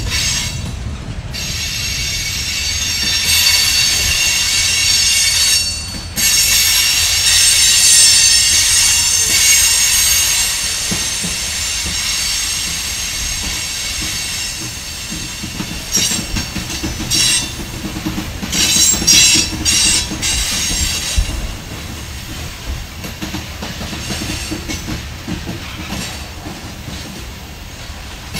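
Empty two-bay covered hopper cars of a freight train rolling past, their steel wheels squealing in high ringing tones over a steady rumble and clatter of wheels on rail. The squeal swells and fades, loudest in the first third and again, in on-and-off pulses, a little after the middle.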